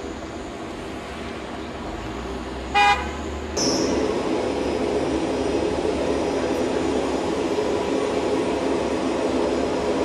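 A horn toots once, briefly and loudly, about three seconds in. Just after it, a louder steady mechanical drone with a thin high whine sets in.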